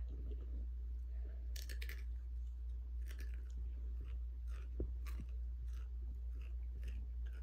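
Takis rolled tortilla chips being crunched and chewed, in scattered irregular crunches, over a steady low hum.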